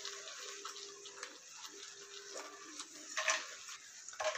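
Faint sizzling of sliced almonds frying in hot ghee in a nonstick pan, with a couple of light clicks as more slivers drop in.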